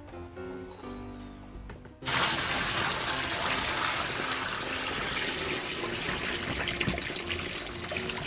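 Light background music, then about two seconds in water suddenly starts pouring from a bucket and splashing steadily into a plastic cooler already partly full of water.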